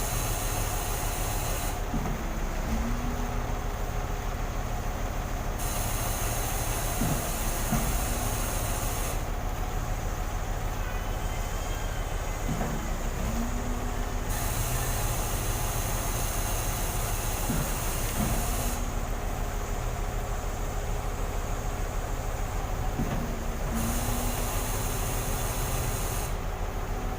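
Concrete pump truck working: steady diesel engine running, with a knock about every five seconds as the pump changes stroke, and a hiss that switches on and off every few seconds.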